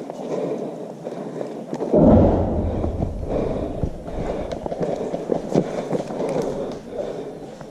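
Rustling and knocking of gear and footsteps picked up by a body-worn camera, with a heavy thump against the microphone about two seconds in and a few sharp clicks after it.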